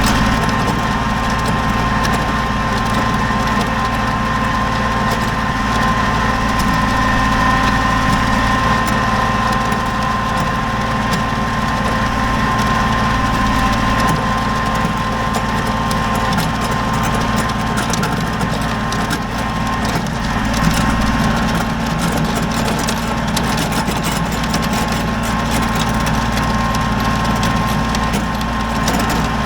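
Kubota BX23S compact tractor's diesel engine running steadily.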